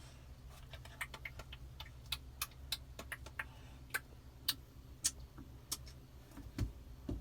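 Scattered light clicks and ticks, irregularly spaced, over a faint steady low hum.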